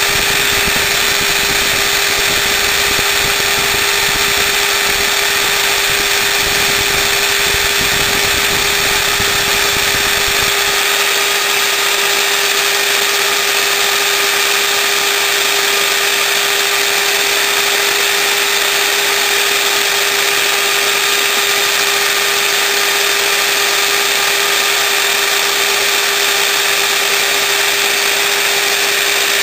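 Dremel rotary tool with a cutting bit running at high speed against a wood dowel that a Craftsman 1/2-inch drill spins on a homemade lathe: a loud, steady whine with grinding hiss. A low rumble underneath drops away about eleven seconds in.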